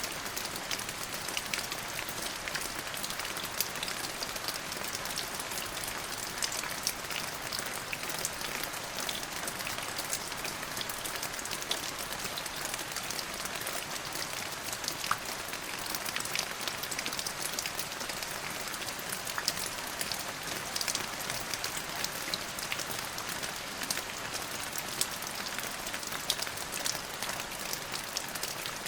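Steady rain falling on a surface, with many individual drops pattering clearly in the higher range.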